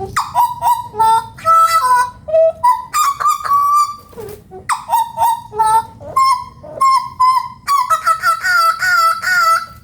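A butcherbird singing: a lively run of short, fluty whistled notes and gurgling phrases, with brief pauses between phrases.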